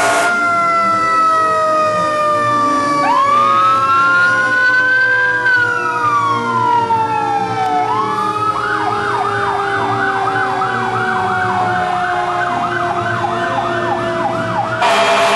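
Sirens of passing fire engines and an ambulance. One siren winds slowly down in pitch throughout. Another wails up and then down, and about eight seconds in switches to a fast yelp of about three cycles a second. A loud blare sounds at the very start and comes back near the end.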